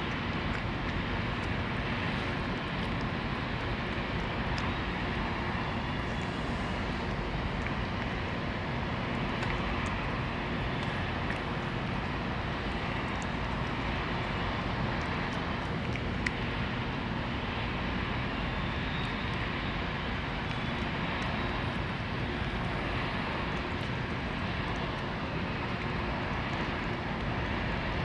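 Steady, even outdoor background rumble, like distant engine noise, with a few faint clicks scattered through it.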